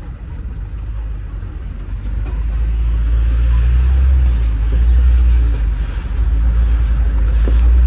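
Truck engine and road rumble heard inside the moving cab: a loud, steady low rumble that grows louder about three seconds in.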